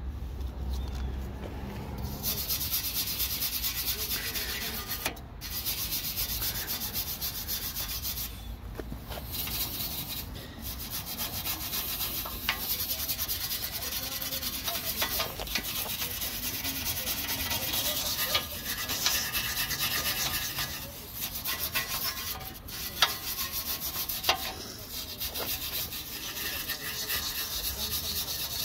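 Hand-held wire brush scrubbing rust off a steel bumper reinforcement bar: a steady rasping scrub with a few short pauses.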